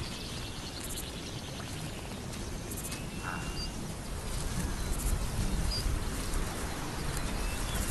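Open grassland ambience: a steady low rumble with faint, scattered bird chirps and a few thin whistling calls.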